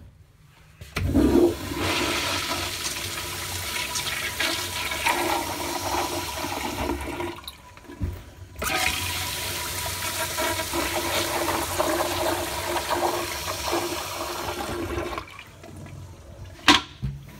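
Commercial flushometer-valve Kohler Rockwell toilet flushing down toilet paper and paper towel, a loud rush of water that runs about six seconds, breaks off, and starts again for a second flush. A sharp click comes near the end.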